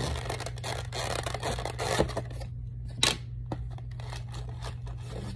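A clear plastic trading-card box being unsealed and opened by hand: plastic crinkling and scraping, with a sharp click about two seconds in and another about three seconds in.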